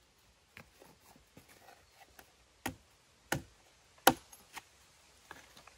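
Large knife chopping down onto a wooden log as stems are trimmed off freshly picked wild mushrooms. Irregular sharp chops with faint taps between them, the loudest about four seconds in.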